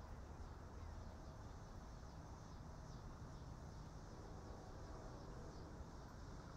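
Quiet background: a low, steady rumble with a faint, steady high-pitched hiss above it, and no distinct events.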